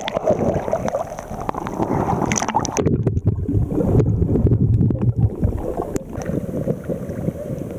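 Sea water sloshing and splashing around a small waterproof camera at the surface; about three seconds in the camera goes under and the sound turns muffled, a low underwater rumble of churning water, until the upper sounds start to come back near the end.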